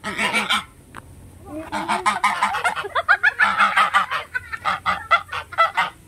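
Domestic geese honking repeatedly: one short burst of harsh honks, a pause, then a long run of honks that breaks into shorter, quicker calls near the end.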